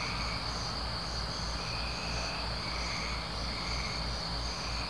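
Night crickets and other insects: a steady high trill with chirps that pulse in and out under a second apart, over a low rumble.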